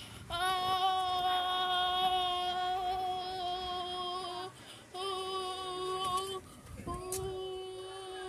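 A high voice holding one long steady sung note, breaking off twice and taking it up again at the same pitch.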